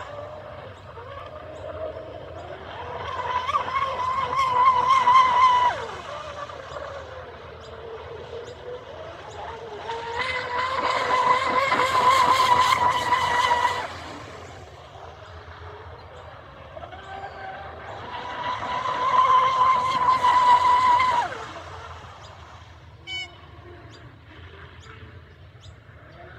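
3D-printed RC speedboat with a 4090-size 1650 kV brushless motor on 6S, making three full-throttle runs. Each run is a high, steady whine that swells up, then cuts off suddenly with a brief falling drop as the throttle is released. Quieter, lower part-throttle running fills the gaps between runs.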